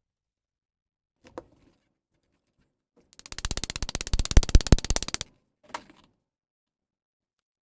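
A fast, even run of mechanical clicks, about twenty a second, lasting about two seconds, with a light knock before it and a short clatter after it.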